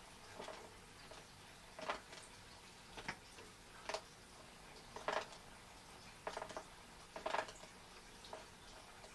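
Faint short clicks, about one a second and some in quick little clusters, as an African bullfrog gulps down a live mouse.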